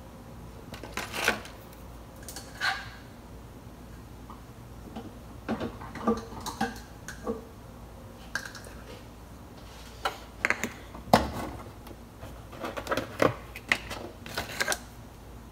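Scattered clicks, knocks and rustles of kitchen things being handled while making a boxed brownie mix, with the loudest knock about eleven seconds in.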